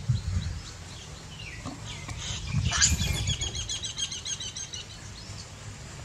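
A bird calls in a fast trill of high chirps, about seven a second, starting a little under three seconds in and lasting about two seconds, over a steady low rumble.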